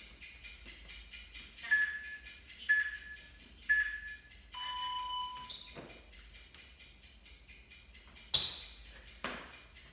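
Interval-timer countdown: three short high beeps a second apart, then one longer, lower beep marking the start of the work interval. Near the end, a sharp slap of hands hitting the hard floor, the loudest sound, and a softer thud about a second later as he drops into a plank. Faint background music with a quick ticking beat throughout.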